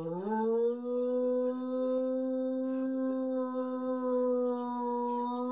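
A black dog howling: one long howl that slides up in pitch at the start, then holds steady.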